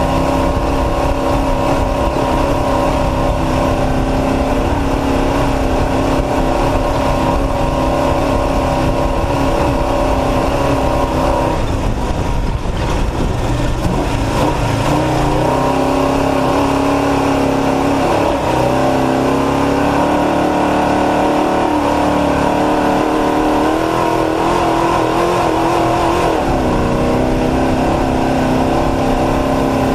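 Off-road race truck engine running continuously, its pitch steady at first and then stepping down and up several times in the second half, with a brief rougher patch about twelve seconds in.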